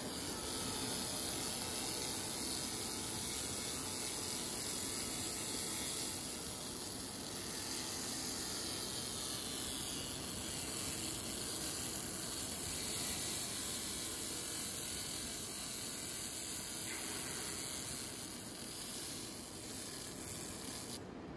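Flaser Hulk 200 handheld laser cleaner ablating rust off a steel plate: a steady hiss with a rapid fine crackle as the beam sweeps the surface.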